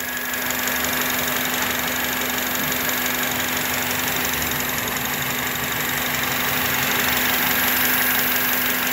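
2005 Honda Element's 2.4-litre four-cylinder engine idling with a misfire on cylinders 2 and 3, with a steady hiss over it that the mechanic takes for a vacuum leak.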